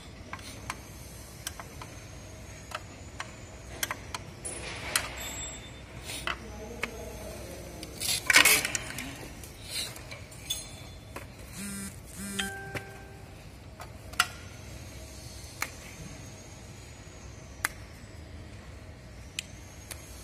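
Scattered light clicks and taps from a screwdriver and wires being handled at the terminals of an L&T MU2 contactor starter, with a louder scrape about eight seconds in.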